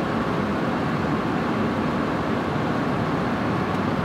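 Steady rushing flight-deck noise of a Boeing 747-8F freighter on final approach: airflow and engine noise at an even level.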